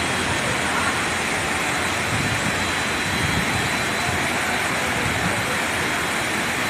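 Floodwater rushing in a steady, unbroken noise.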